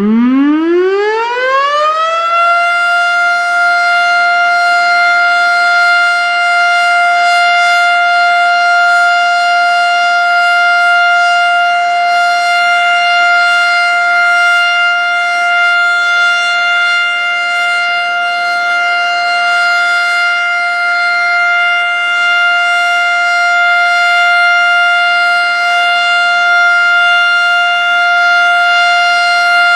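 Federal Signal STH-10 outdoor warning siren winding up, its pitch rising over the first two seconds or so, then holding one loud steady tone: the steady alert signal of a weekly siren test.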